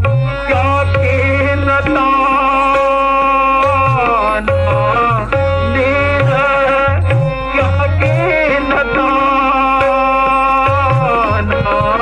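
Kumaoni Ramleela sung dialogue: a voice singing a melodic line over a steady harmonium drone, with tabla beating underneath.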